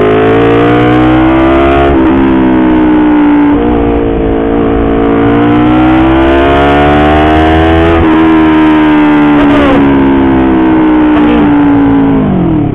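Honda CBR250RR parallel-twin engine through an R9 aftermarket exhaust, heard from the rider, pulling hard with the pitch climbing and dropping back at gear changes about two seconds and eight seconds in. Near the end it falls in pitch as the bike slows. It is loud enough that the rider's ears are ringing.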